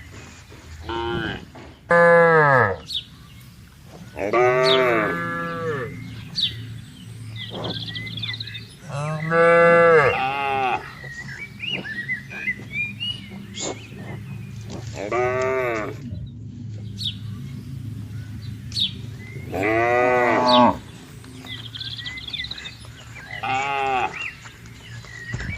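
Cattle mooing again and again, about seven long calls that rise and fall in pitch, with pauses of a few seconds between them.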